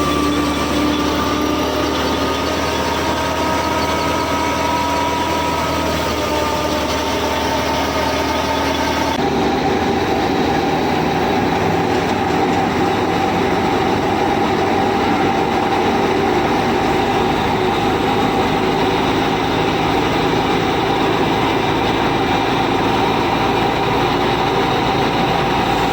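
A machine running steadily with a whine. About nine seconds in, the sound changes abruptly to a different steady pitch.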